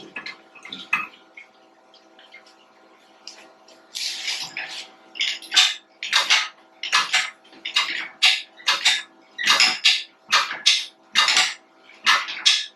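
Metal-on-metal clinking and rasping in quick, even strokes, about one every 0.7 seconds, starting about four seconds in, over a faint steady hum.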